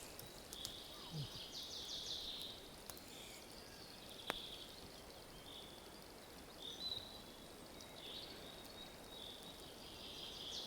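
Faint songbirds calling, with short high chirps and quick trills, and one sharp click about four seconds in.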